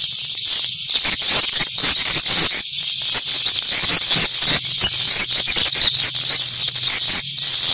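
Swiftlet calls, a dense, continuous high-pitched twittering and chirping with quick clicks. It is the kind of swiftlet lure sound played through tweeters to call swiftlets to a site, here over a steady low electrical hum.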